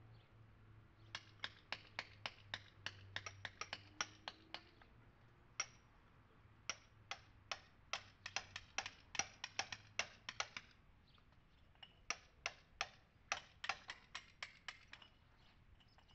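Hammer striking a chisel to rake old lime mortar out of a stone wall, in runs of sharp taps about three to four a second, with short pauses between runs.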